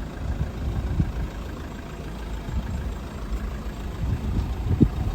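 Low, steady rumble of a car on the move, with a few brief bumps, the strongest near the end.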